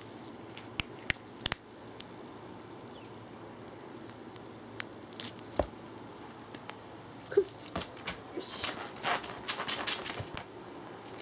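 Cats playing: scattered light clicks and small jingling sounds, then a busier stretch of scuffling and rustling about eight to ten seconds in as a calico cat pounces across tatami matting.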